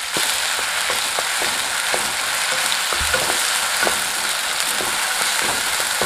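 Ground spice paste sizzling steadily in hot oil in a non-stick kadai, with light scrapes and taps of a spatula as it is stirred and fried.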